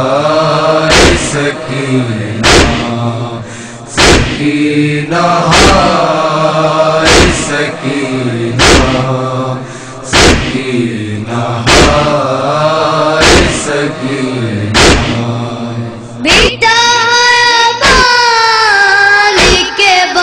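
Voices chanting a noha lament in unison, kept in time by sharp chest-beating (matam) thuds about every one and a half seconds. Near the end a single high, young voice takes up the verse over the beat.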